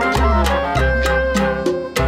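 Instrumental jazz ensemble music in a Latin and Jewish folk style: sharp percussion strokes at a steady pulse over held bass notes and a melody line.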